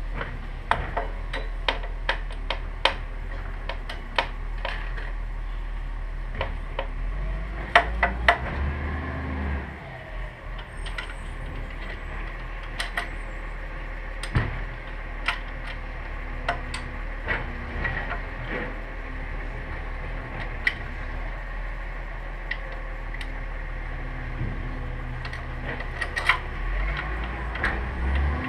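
Hand tools clicking and clinking against metal at a race motorcycle's front fork, axle and brake caliper during a front-wheel change: a string of separate sharp metallic taps, with a steady low hum behind.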